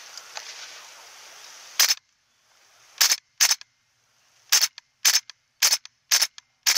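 Gas blowback airsoft M14 firing eight single shots, each a sharp crack. The first comes about two seconds in after a low hiss; the rest follow irregularly, about two a second toward the end.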